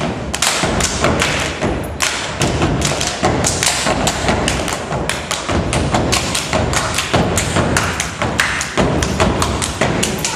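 A step team stomping on the stage floor and clapping in rhythm, several sharp hits a second with no let-up.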